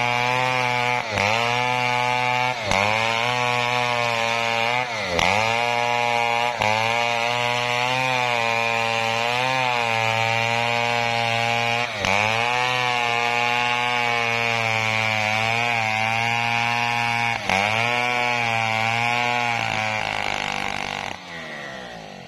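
Chainsaw engine running at high speed through coconut wood, its pitch dipping sharply and recovering about six times as it bogs under load. It dies away near the end.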